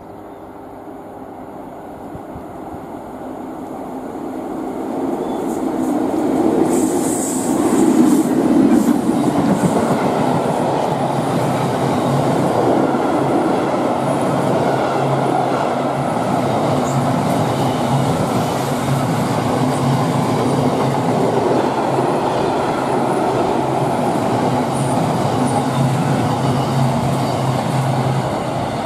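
DB Cargo Class 60 diesel locomotive approaching and passing, loudest about seven to nine seconds in. A long train of bogie tank wagons follows, rolling steadily past with a continuous low hum from the wheels on the rails.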